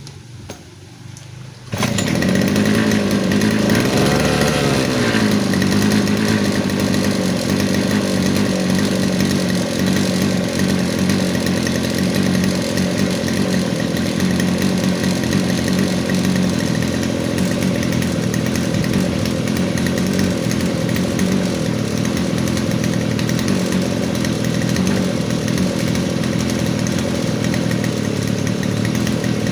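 Small petrol grass-cutting machine's engine, low at first, then throttled up sharply about two seconds in and running steadily at high revs as it cuts grass. Its pitch dips and rises once soon after.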